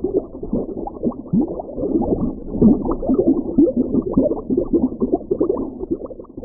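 Underwater sea ambience recorded by divers: a dense, muffled run of short pops and gurgles, easing off slightly near the end.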